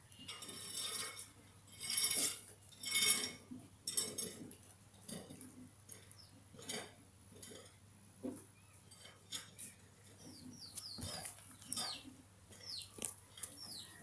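Thin wooden sticks and twine handled against a wooden-framed wire-mesh bird trap: rustling, scraping and light knocks, loudest in the first four seconds. Near the end, small birds give several short falling chirps.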